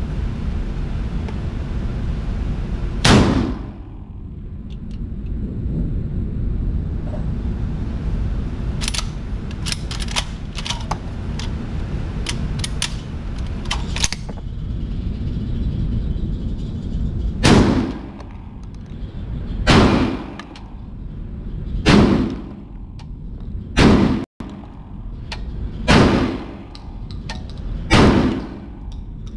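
Indoor range gunfire from a VR80 12-gauge semi-automatic shotgun: one shot about three seconds in, a run of light clicks from handling the gun, then six shots about two seconds apart. Each shot is sharp, with a short ringing tail off the booth walls.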